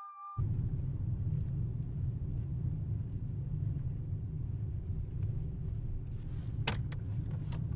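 Steady low road rumble of a moving car heard from inside the cabin, starting abruptly just under half a second in. Near the end there are a couple of brief sharp clicks.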